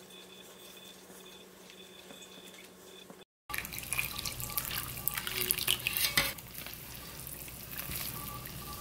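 Rice-syrup liquid pouring into a stainless-steel bowl of chili and fermented-soybean powder while a spatula stirs it into a wet paste. The first few seconds are quiet, and the pouring and stirring start about three and a half seconds in.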